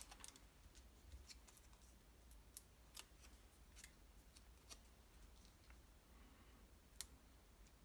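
Near silence with faint, scattered small clicks and taps as paper cut-outs are picked up and handled on the card.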